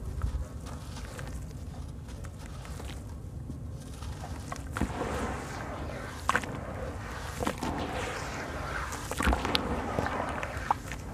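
Hands crumbling a chunk of dry white sand-cement and gritty crunching, then, from about halfway, wet sand being squished and swished in a basin of water, with scattered sharp crackles.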